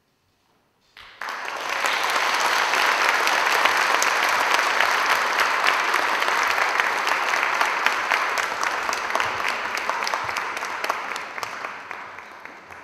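Audience applauding, breaking out about a second in after a brief silence and slowly tapering off near the end.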